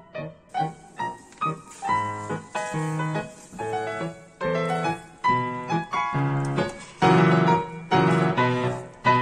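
Background music played on piano, a steady run of struck notes and chords.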